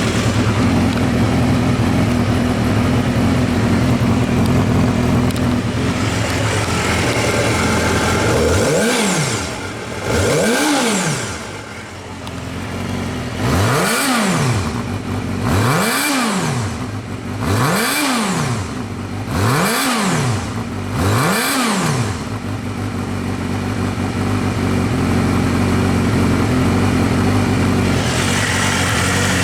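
Honda CBR250R Hurricane's 250 cc inline-four idling, then revved in about seven quick throttle blips, each rising and falling in pitch, before it settles back to a steady idle.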